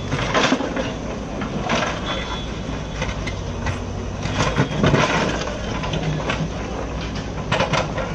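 Backhoe loader's diesel engine running steadily while its bucket scrapes and breaks up concrete paving blocks. Several sudden clattering knocks of the blocks come through, the loudest about half a second in and around five seconds in.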